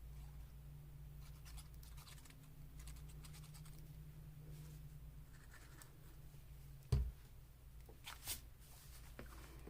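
Faint scratchy rubbing of an ink pad along the edges of a paper piece, with one sharp thump about seven seconds in and a short brushing scrape just after.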